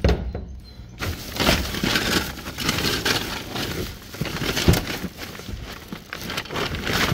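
Plastic and paper bags rustling and crinkling as hands rummage through rubbish in a metal waste bin, with an occasional knock, the loudest about four and a half seconds in.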